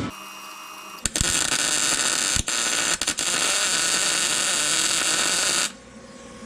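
Wire-feed (MIG) welder running a continuous bead on new sheet-steel repair panel: a loud, steady hiss of the arc starting about a second in, with two brief breaks, then stopping near the end.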